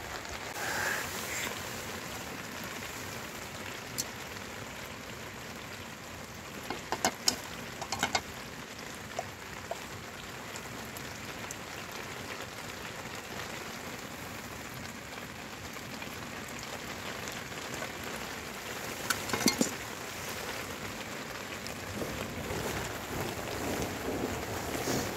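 Steady heavy rain falling on a tarp shelter, with a few sharp knocks in clusters about seven seconds in and again near twenty seconds.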